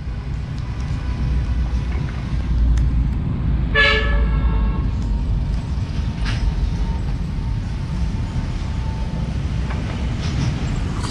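Steady outdoor rumble of wind and traffic, with a vehicle horn sounding once for about a second a little before the middle.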